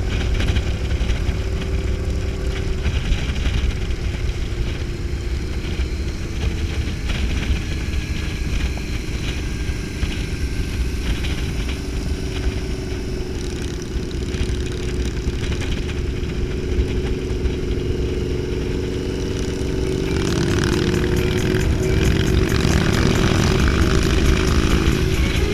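Harley-Davidson Street Glide Special's V-twin running at highway cruise under heavy wind rush. The engine note climbs and gets louder about twenty seconds in, as other motorcycles are passed close by.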